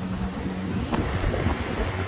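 Steady low hum of rooftop air-conditioning units running, with wind on the microphone.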